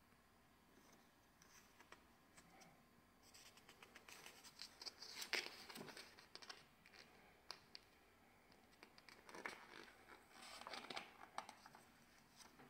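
Faint rustling and crinkling of glossy catalogue pages as they are handled and turned, in two bursts: one a few seconds in and another near the end.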